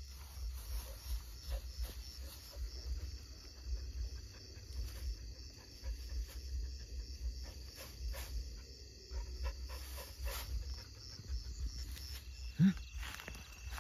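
Footsteps and rustling through tall grass and brush, with scattered snaps and clicks of stems, over a steady pulsing chirp of insects. One short, low grunt-like sound about a second before the end is the loudest moment.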